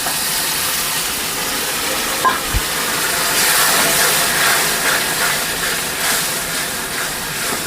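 Water (the stock the goat meat was boiled in) poured into a hot pan of frying masala, starting suddenly and hissing and sizzling steadily; it is added because the masala has dried out. A light knock sounds about two and a half seconds in.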